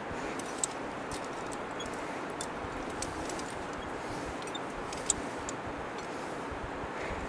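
Metal climbing hardware (carabiners and gear at the belay) giving sharp clinks and clicks, the two loudest about two-thirds of a second and about five seconds in, over a steady rushing background noise.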